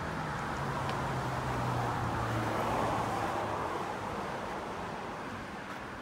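A vehicle passing on the road: a low engine hum and tyre noise swell to a peak about three seconds in, then fade away.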